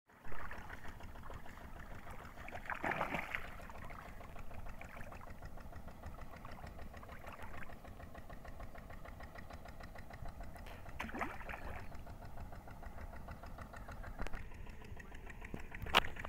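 A motor running steadily in the background with a fast, even pulse. Two brief louder swells come about three and eleven seconds in, and a single sharp click comes near the end.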